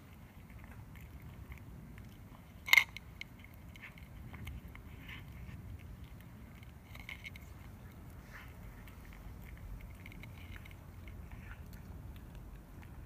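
Calico cat eating from a bowl, chewing with many small, irregular clicks. About three seconds in comes a single much louder sharp click.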